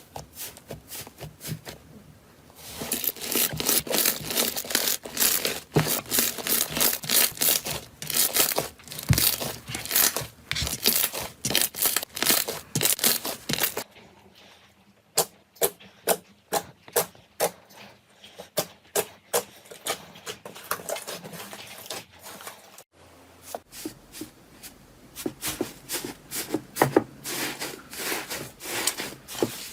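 Slime being pressed, squeezed and stretched by hand, making rapid crackling, popping and squelching clicks. The sound changes abruptly about 2.5, 14 and 23 seconds in as one slime clip gives way to the next.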